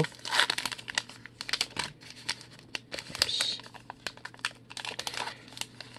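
Foil trading-card pack wrapper crinkling while a stack of baseball cards is pulled out and handled, the cards' edges clicking and sliding against each other in a string of small quick ticks.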